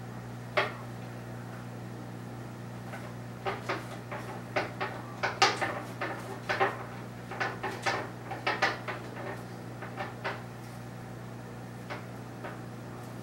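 Irregular sharp clicks and knocks, several a second for about seven seconds in the middle, over a steady low hum.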